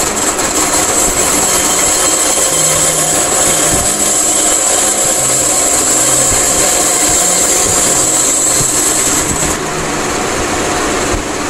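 Benchtop band saw running steadily while its blade cuts through a small turned wooden chess piece, parting it from the waste. The high hiss of the cut stops near the end, once the piece is through.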